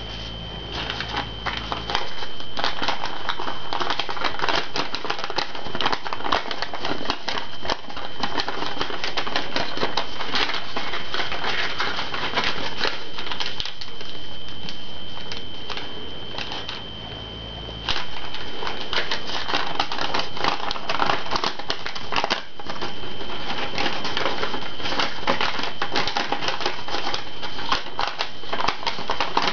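Paper crackling and rustling close to the microphone as hands crease and fold an origami sheet: a dense, irregular run of small crisp clicks that eases off briefly about two-thirds of the way through. A steady high whine runs underneath.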